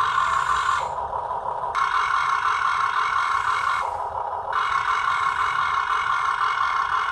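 Small electric gear motors of a radio-controlled model construction vehicle whirring steadily. A higher-pitched whir starts and stops three times in runs of one to three seconds, as one motor is switched on and off.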